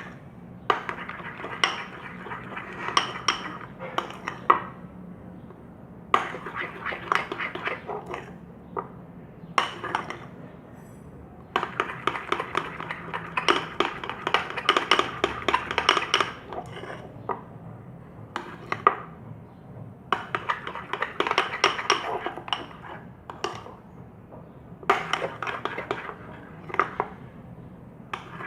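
A spoon stirring a thick mix of slime ingredients in a container, scraping and clinking against its sides in rapid strokes, in stretches of a few seconds broken by short pauses.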